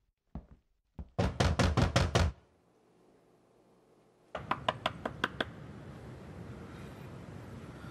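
Knocking on a door: a loud run of about six rapid raps about a second in, then after a pause a second run of quicker, lighter knocks.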